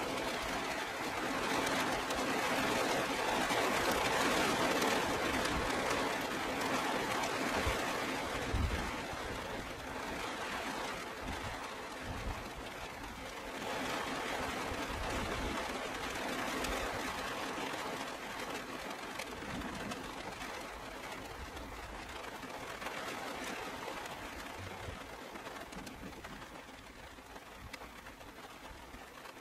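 Heavy rain falling steadily during a thunderstorm, heaviest in the first third and easing off toward the end, with a few brief low thuds along the way.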